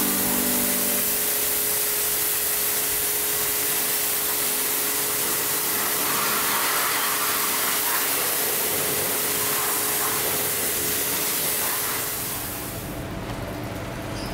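Pressure washer jet spraying water onto a car's rear bodywork: a steady, loud hiss that stops about twelve seconds in.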